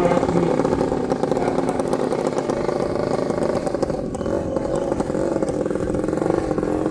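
Engine of a Thai long-tail racing boat running steadily.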